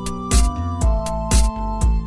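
Background music with a steady drum beat, about two hits a second, under held electronic keyboard notes.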